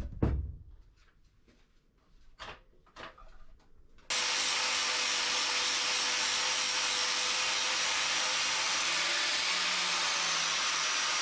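Workshop tool sounds: a sharp knock with a short low ring, then a few scattered taps and scrapes. About four seconds in, a steady whooshing machine noise with a faint hum starts abruptly and holds even.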